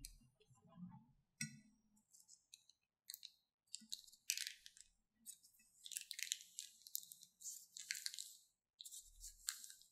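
Quiet crinkling of a plastic piping bag being squeezed out, in short irregular crackly rustles.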